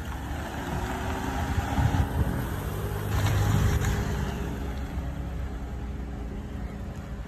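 A 2015 Toyota Harrier with a 2.0-litre petrol engine pulls away at low speed and drives past. It is loudest about three seconds in as it passes close, then drops back as it moves off.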